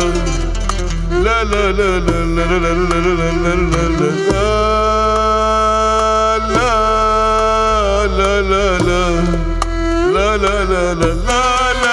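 Arabic music ensemble of violin, oud, keyboard and hand drum playing a slow, ornamented melody in long held notes over a steady bass line.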